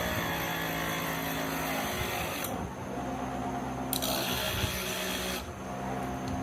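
An electric power tool running steadily with a motor hum. The sound changes abruptly a few times, as if the shot cuts between different stretches of machine work.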